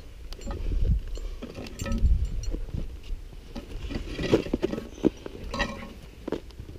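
Scrambling on rock: irregular scrapes and knocks of hands and boots on the rock, with light clinks of metal climbing gear, over a low rumble of wind on the microphone.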